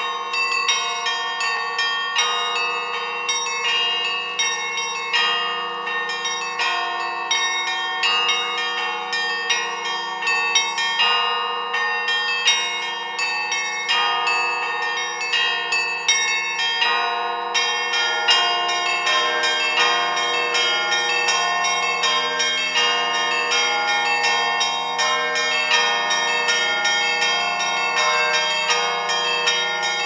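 Russian Orthodox festive bell ringing: several church bells of different pitches struck by hand in a fast, continuous pattern that keeps overlapping. A little past halfway the pattern shifts and a lower bell joins in.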